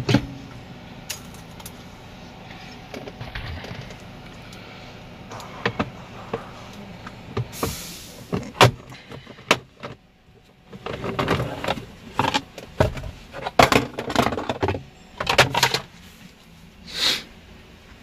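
Scattered clicks, knocks and plastic rattles as a car's steering wheel is worked off its column and the column parts are handled. The clatter is busiest in the second half, with a short hiss near the middle.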